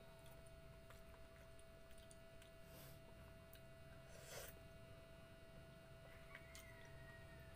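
Very faint sounds of a person eating by hand: a few light clicks of food and shells being handled, and a short noisy smack about four seconds in as food goes into the mouth, then chewing. A steady faint hum runs underneath.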